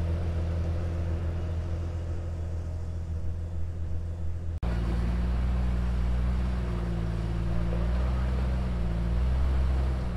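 Off-road vehicle engine running at low revs, a steady deep drone. About four and a half seconds in the sound switches abruptly to another engine whose pitch rises and falls slightly as it works along at low speed.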